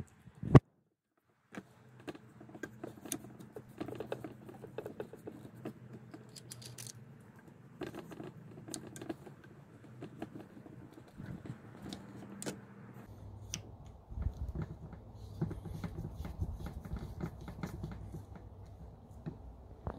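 Plastic drip-irrigation hose fittings being handled and screwed together: irregular clicks, taps and rattles of hard plastic, with one loud click about half a second in. A low steady rumble runs underneath and grows stronger about two thirds of the way through.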